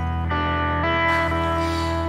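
Music: a steady low drone under sustained pitched notes, which move to new pitches about a third of a second in and again just under a second in.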